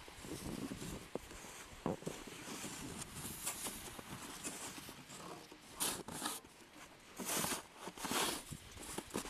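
Packed snow crunching and scraping under a sled-type hand snow pusher, in several short, uneven rasping strokes, the loudest in the second half, with one sharp click about two seconds in.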